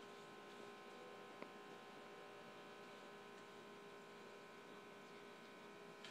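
Near silence: a faint, steady hum, with one small click about a second and a half in.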